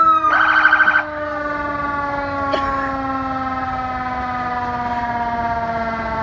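Siren winding down: its several tones slide slowly and steadily lower in pitch. A loud pulsing tone cuts in briefly within the first second.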